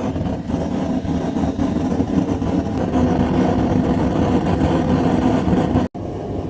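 Forge firing up for heat treating, running as a steady, loud, low rumble. It breaks off for an instant near the end.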